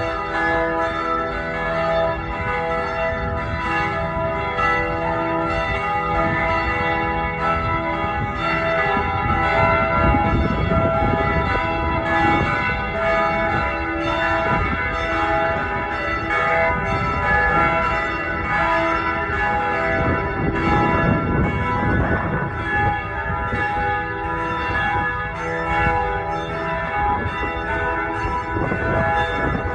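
A peal of church bells ringing continuously, many strokes following one another so their tones overlap and hang in the air.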